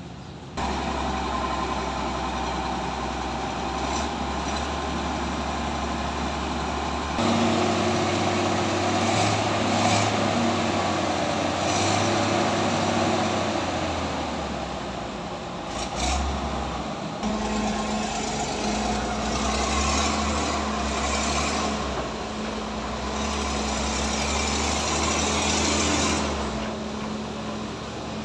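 Heavy diesel engines of a SANY SY205C excavator and a Kato crane truck running under load as the excavator tows the mud-stuck crane truck free. The engine note steps up about half a second in and again around seven seconds, then shifts pitch several times.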